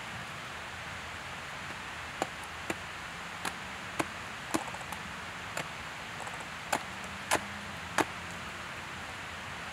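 About nine sharp cracks and snaps, spaced irregularly from about two seconds in to about eight seconds in, as a woody hemlock reishi (Ganoderma tsugae) shelf mushroom is worked loose by hand from a hemlock trunk. A steady faint hiss sits underneath.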